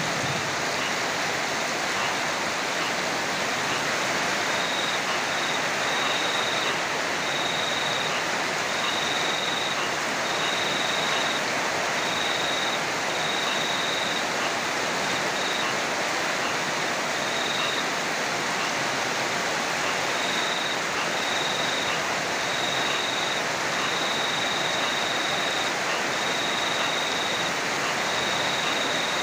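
Heavy rain falling steadily, a dense even hiss. A faint high trill repeats in short stretches through most of it, dropping out for a few seconds in the middle.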